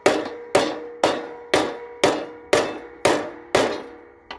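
Body hammer striking the steel deck of a Cub Cadet LT1040 riding mower at a steady two blows a second, eight in all, each blow leaving the metal ringing, with a lighter tap near the end. The deck is being hammered back into shape where it has been bent and the blade catches on it.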